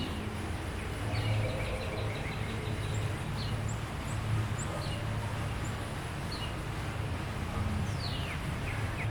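Birds chirping in short, scattered calls, one falling in pitch near the end, over a steady low rumble of outdoor background noise.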